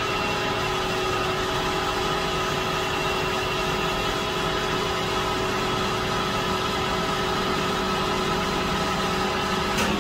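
Manual metal lathe running steadily at 800 RPM: an even mechanical whine with several steady tones from the spindle and gearing, as the cutting bit faces the end of a PVC tube.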